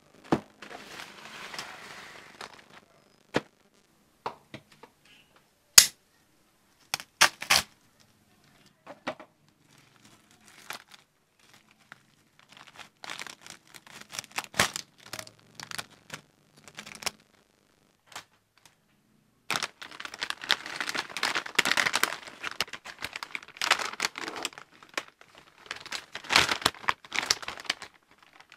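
An Apple AirPods (2nd generation) box and its wrapping being handled and opened by hand: scattered sharp taps and clicks through the first half, then about eight seconds of dense crinkling and tearing of the packaging from about 20 seconds in.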